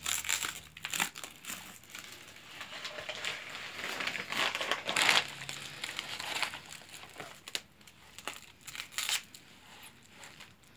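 Plastic stretch film being pulled off a hand-held roll and wrapped around a wooden log, rustling in irregular bursts, loudest about five seconds in.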